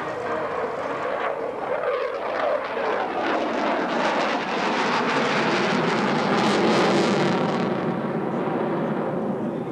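Grumman F-14 Tomcat's twin jet engines as the fighter flies past, the noise building to its loudest about seven seconds in and then easing off.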